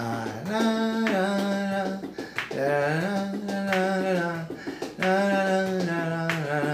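A male voice humming the song's melody without words, in held notes that glide from one pitch to the next, with a sharp finger snap about every second or two keeping time.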